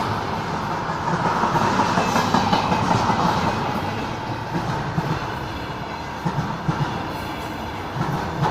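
Container freight train rolling past: a steady rumble with the clickety-clack of wagon wheels over rail joints, knocking more sharply in the second half.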